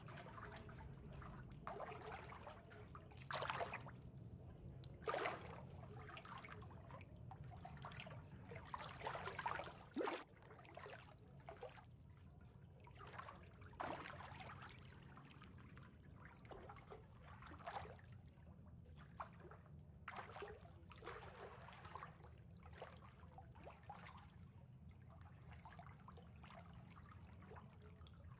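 Faint water ambience: gentle lapping and trickling water coming in irregular soft swells, over a steady low hum.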